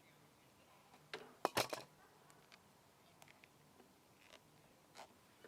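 Sharp small clicks and snaps of hose clamps being fitted onto a lawn mower's rubber fuel line: a quick cluster about a second in, then a few single clicks.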